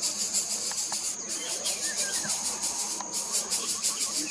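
Insects trilling in a steady, fast pulsing rhythm, high-pitched, with a few faint bird chirps.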